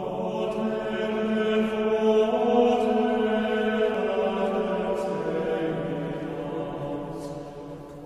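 Slow chant sung on long held notes that step in pitch a few times and fade toward the end.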